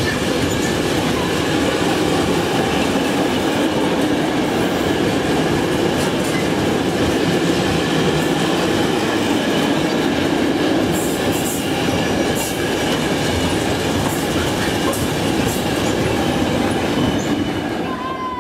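Container wagons of a long intermodal freight train rolling past at speed: a steady rumble and clatter of wheels on the rails, with faint high wheel ringing.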